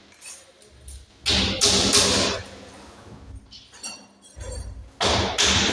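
Carpentry work: sharp thuds, each trailed by about a second of hiss. They come in two pairs, one about a second and a half in and one near the end.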